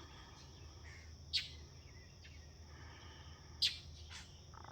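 Two short, sharp bird chirps about two seconds apart, over a steady high-pitched insect buzz and a low background hum.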